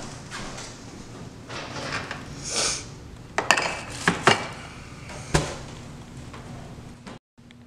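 A kitchen trash can being handled: the plastic bin liner rustles, then several sharp knocks and clunks of the can and its lid, the loudest about halfway through. The sound cuts out briefly near the end.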